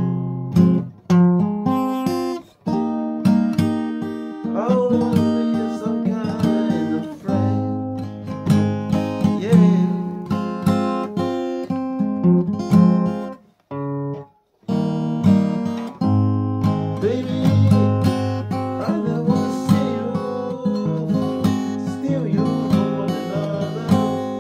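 Acoustic guitar being played, strummed chords mixed with picked single notes, some of them bent up in pitch. The playing breaks off for about half a second a little past halfway, then carries on.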